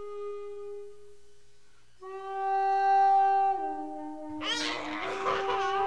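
Solo flute music: a slow melody of long held notes that step down in pitch. About four seconds in, a breathy, wavering ornament comes in over a held note.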